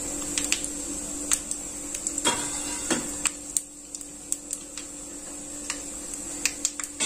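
Whole spices (mustard seeds, cumin, fenugreek and ajwain) crackling in hot oil in a kadhai: irregular sharp pops over a steady hum, the tempering stage where the seeds splutter in the oil.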